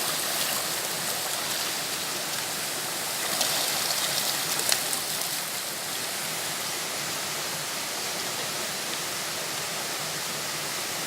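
Steady rush of water from a waterfall stream, a little louder for a couple of seconds about three seconds in.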